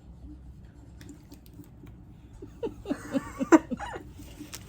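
A person laughing briefly in a run of short bursts, starting about two and a half seconds in and lasting about a second and a half, over quiet room noise with a few faint clicks.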